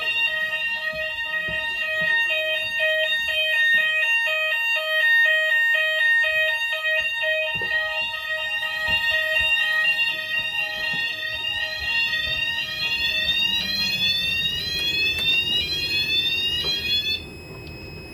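Fire alarm sounders of a Notifier/Hochiki ESP system in full alarm after a call point test: several pulsing tones at once, overlaid with fast repeated rising sweep tones. They cut off suddenly about a second before the end.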